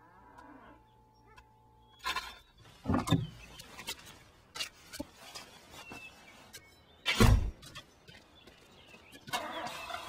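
Several sharp knocks and thumps, the loudest a heavy thud about seven seconds in, then a steady rumbling noise starting near the end.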